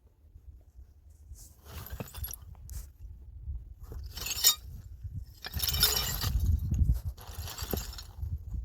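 Hard objects clattering and clinking as they are handled, in several separate bursts, with a low rumble underneath.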